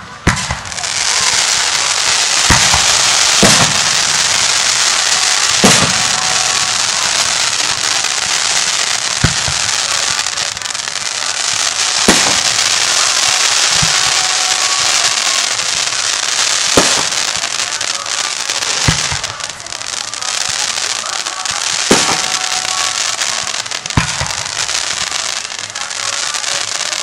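Fireworks display: about a dozen sharp bangs from bursting aerial shells, a second to a few seconds apart, over a continuous dense crackling.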